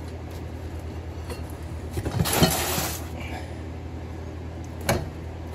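Brake caliper handled and set down on a cardboard box: a scraping, rustling bump lasting about a second about two seconds in, then a single sharp knock near the end, over a steady low hum.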